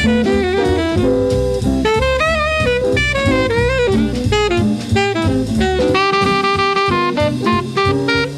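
Trumpet playing a quick jazz melody over a backing of bass and drum kit.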